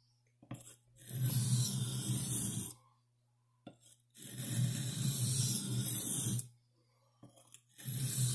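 Buck 119 knife blade drawn across an oil sharpening stone in three long rasping strokes, one about every three seconds, raising a burr on one side of the edge.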